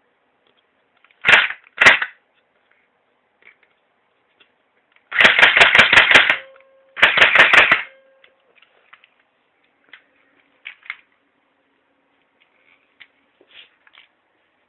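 Replica M4-style rifle firing: two single shots, then two short bursts of rapid fire at about seven or eight shots a second, followed by a few faint clicks.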